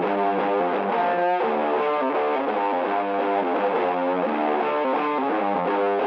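Background music led by a guitar playing a run of notes.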